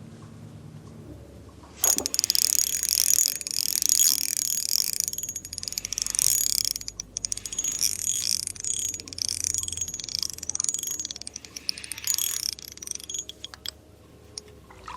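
Shimano Soare XR ultralight spinning reel's drag clicking rapidly as a hooked fish pulls line, starting suddenly about two seconds in and going on in uneven surges for about ten seconds before tailing off. The drag runs on a felt washer with drag grease, giving fine, countable clicks.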